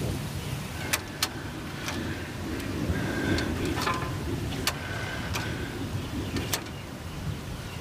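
A payphone's rotary dial being dialled: several sharp clicks, a second or more apart, with short steady tones of about half a second between them, over a low steady rumble.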